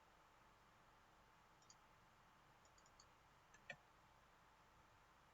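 Near silence with a few faint clicks from someone working a computer while entering values into a form, the loudest a little under four seconds in.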